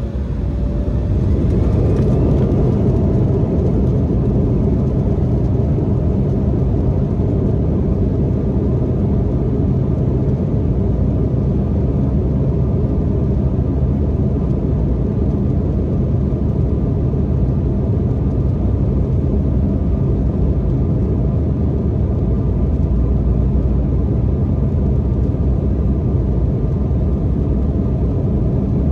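Embraer E175's twin turbofan engines spooling up to takeoff thrust, with a rising whine and growing loudness over the first couple of seconds. Then a steady loud rush of engine and airflow noise, heard from inside the passenger cabin.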